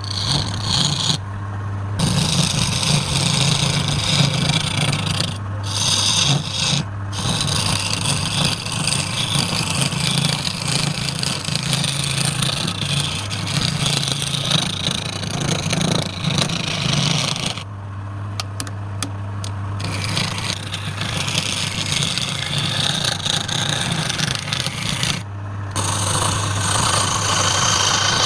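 Wood lathe running with a steady motor hum while a tool scrapes against the spinning wood. The scraping breaks off several times, with the longest break of about two seconds past the middle, while the hum carries on.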